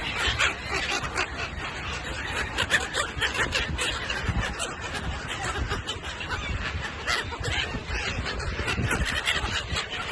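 A flock of gulls calling, many short cries overlapping continuously, over a steady low rumble.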